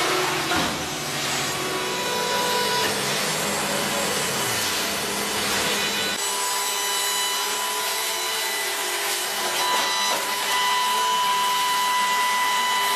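Hydraulic scrap-metal baler pressing a car into a bale: a steady machine drone and whine with rubbing and scraping of metal. About six seconds in the low drone drops away and a steady high whine carries on.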